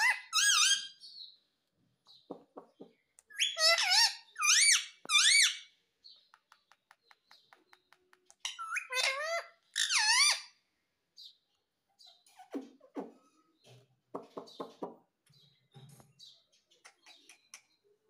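Indian ringneck parakeet giving loud, shrill chirping calls in three short bouts, each note bending up and down in pitch. Between the bouts comes a quick run of faint clicks, and softer, lower chattering follows later.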